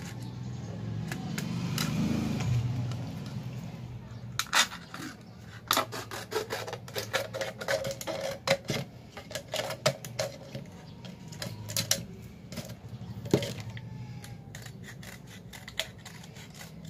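Scissors snipping and cutting through a thin plastic soda bottle: an irregular run of sharp clicks and plastic crackles from about four seconds in, thinning out after about fourteen seconds. A low rumble swells and fades in the first few seconds.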